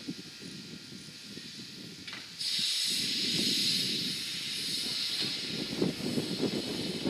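Standing steam locomotive releasing steam: a steady, loud hiss starts suddenly about two and a half seconds in, after a brief faint one, over a low rumble.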